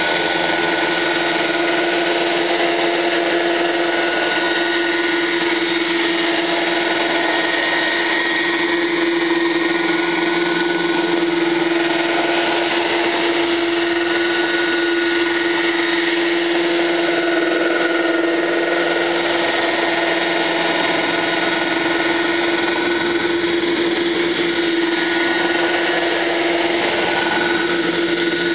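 Radio-controlled scale model helicopter, a UH-72 Lakota, hovering and manoeuvring low over grass: a steady high whine of its motor and rotors that holds nearly one pitch throughout.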